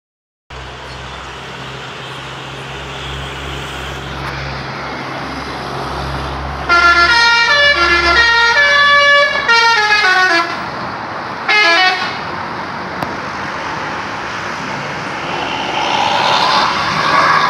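Tour bus's Basuri telolet multi-tone air horn playing a quick stepping melody for about four seconds, then a short second burst, over the bus's engine running. The engine noise grows louder near the end.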